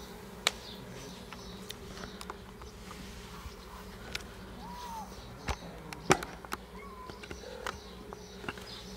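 Kittens crunching dry kibble from a plate: scattered sharp clicks, the loudest a little after six seconds in, over a steady low hum.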